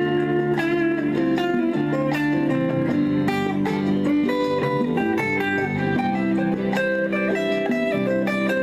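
Instrumental music: a single-note lead melody played live over a pre-recorded backing track in C, the notes moving step by step above steady sustained chords.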